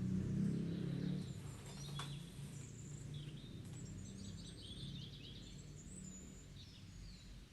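Ambient outdoor sound: birds chirping and trilling now and then over a low background rumble that is loudest in the first second and then fades.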